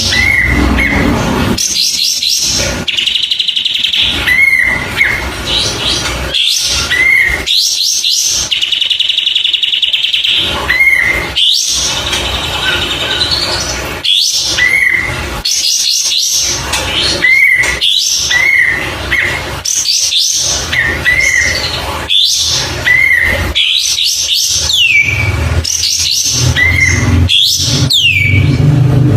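A kapas tembak bulbul singing: short upward-hooked whistled notes repeated every second or two, mixed with rapid chattering trills.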